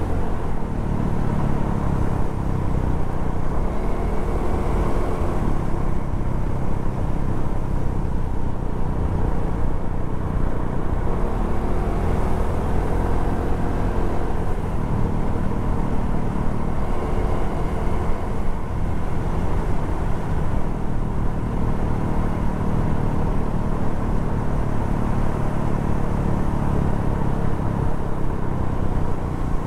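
Suzuki Address 110 scooter's single-cylinder four-stroke engine running under way, its pitch rising and falling gently as the throttle and speed change, over a steady low rumble.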